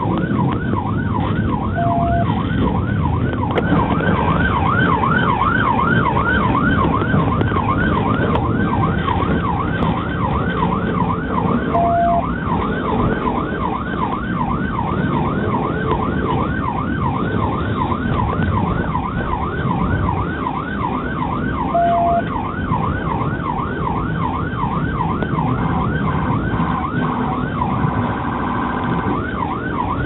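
Police car siren in a fast up-and-down yelp over a steady low rumble of engine and road noise. A short steady beep sounds about every ten seconds.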